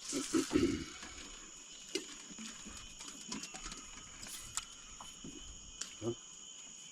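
Riverside nature ambience: a steady high insect drone, with a short cluster of thuds in the first second and a few light knocks and clicks later.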